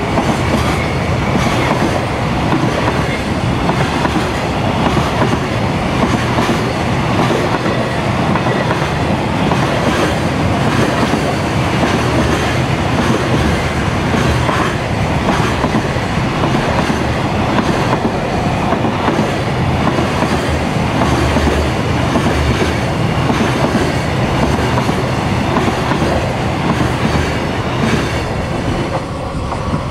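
Long container freight train passing through: loaded container flatcars rolling by with a steady rush and a repeated clickety-clack of wheels over the rail joints. The sound falls away near the end as the last wagon clears.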